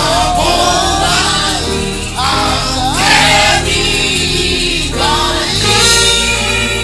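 Gospel praise music: a group of voices singing together over instrumental backing with steady sustained bass notes.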